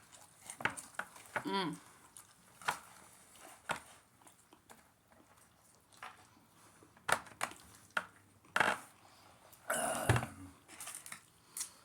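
Eating sounds: chewing with paper food wrappers crinkling and rustling in short, scattered bursts. A brief pitched vocal sound, bending up and down, comes about a second and a half in.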